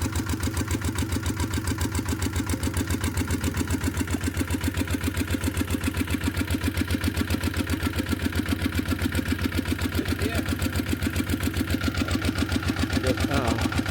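Engine of a two-wheel walking tractor ("iron buffalo") idling, with a steady, even chugging of about seven or eight beats a second.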